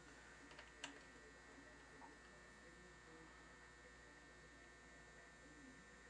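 Near silence: a steady faint electrical hum, with a couple of faint small clicks about a second in.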